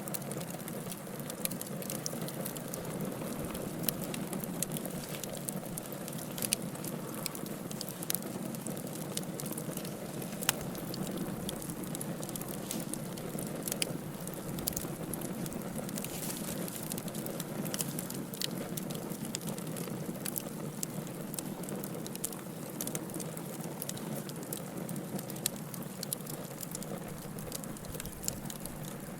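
Wood fire burning in a fireplace: a steady low rush of flames with frequent irregular crackles and pops from the burning logs.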